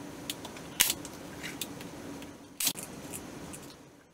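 Handling noise on a workbench: scattered small clicks and taps as a Velcro strip, bristles and a hot glue gun are handled, two of them sharper, about a second in and near three seconds, over a steady low hum. The sound fades out at the end.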